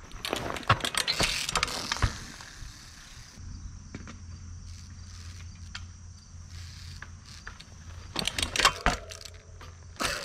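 A 24-inch Echo trials bike being ridden and hopped. There are clicks and knocks of the bike's freewheel, chain and frame, and a cluster of sharp knocks about eight seconds in. Near the end comes a knock as the front tyre lands on a tree stump.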